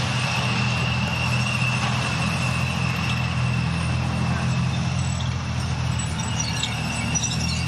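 M60 Patton tank driving by, its air-cooled V12 diesel running steadily with a steady high whine above it. Light squeaks and clinks from the tracks come near the end.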